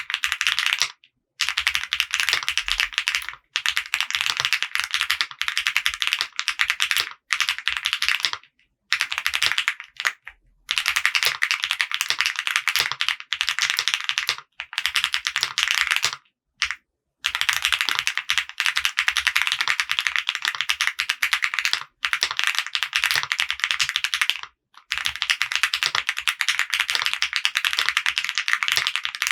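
Typing on a custom mechanical keyboard with an FR4 plate, lubed Akko CS Jelly White linear switches and CMK ABS keycaps. The key clacks come in fast runs of a few seconds each, broken by short pauses.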